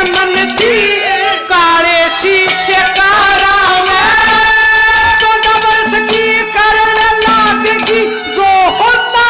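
Haryanvi ragni folk music: a melody line with slides and ornaments and a long held note near the middle, over regular drum strokes.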